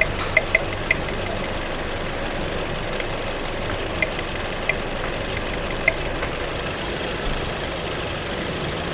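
A 2009 Toyota four-cylinder petrol engine idling steadily, running on all four cylinders now that its shorted No. 1 ignition coil has been replaced with a genuine Toyota coil. A few light sharp clicks come through in the first six seconds.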